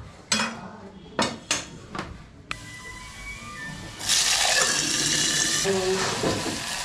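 A few knife chops on a wooden cutting board. Then, about four seconds in, a loud sizzle of food frying in a hot pan starts and goes on more softly.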